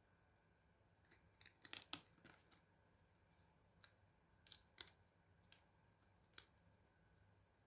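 Small sharp clicks and taps of laptop parts being handled: a quick cluster near two seconds in, two of them loudest, then single clicks about a second apart, against a nearly silent room.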